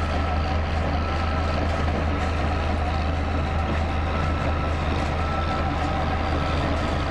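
Diesel road rollers running steadily on a construction site, a deep continuous engine drone, with a faint high beeping tone repeating on and off over it.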